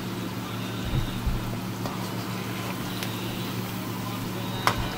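Chicken meatballs deep-frying in hot oil: a steady sizzle and bubbling, over a low steady hum, with a sharp click near the end.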